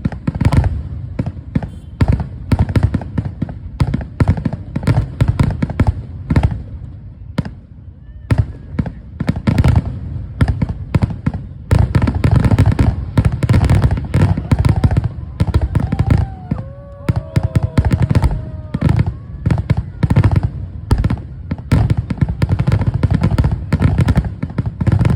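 Fireworks display: a dense, rapid barrage of booming and crackling shell bursts, thinning out briefly about a third of the way in before building up again.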